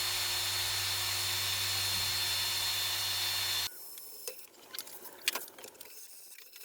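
Power drill running steadily as it bores a hole through a steel bracket, then cutting off suddenly a little past halfway. Light clicks and knocks of handling follow.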